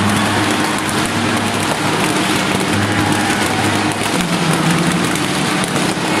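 Dense, continuous roar of a large celebrating crowd, with fine crackling and popping throughout and low steady tones beneath it.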